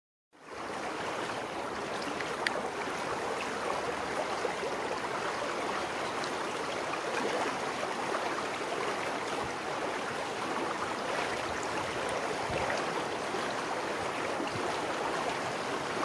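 Steady rushing background noise, an even hiss with no distinct calls, and a faint click about two and a half seconds in.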